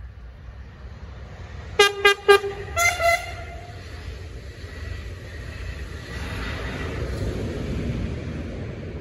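Train horn sounding: three short blasts on a lower note, then two short blasts on a higher note, the loudest sounds here. A passing train's rumble then builds up and carries on through the rest.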